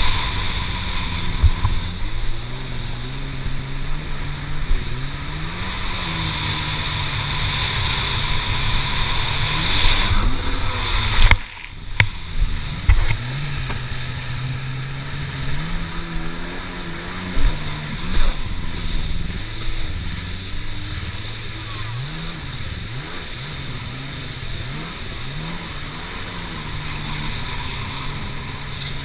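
Stand-up jet ski engine running at speed, its pitch rising and falling with the throttle, over wind and water spray noise. About eleven seconds in the sound drops out sharply for a moment, then comes back with a few knocks.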